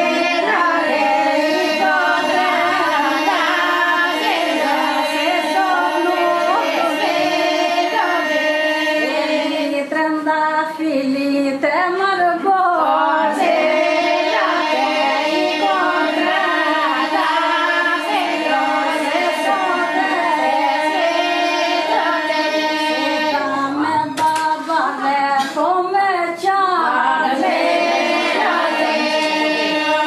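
A group of women singing a traditional Albanian wedding song, with a steady held drone under an ornamented melody.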